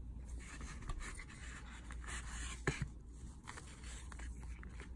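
Soft rustling and scraping of a fabric dust bag and its cardboard gift box being handled as a small leather card holder is drawn out of the bag, with one sharp click a little under three seconds in.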